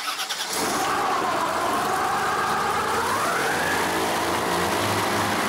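Rescue airboat's engine and large fan propeller running, the pitch rising about three seconds in as it revs up.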